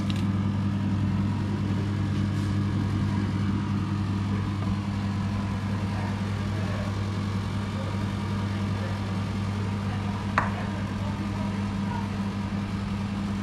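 Steady low hum of a running motor or fan, with a single short knock about ten seconds in.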